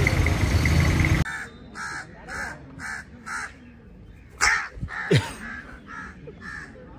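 A crow cawing over and over, about two caws a second, with two louder, sharper sounds around the middle. Before that, steady vehicle noise cuts off abruptly about a second in.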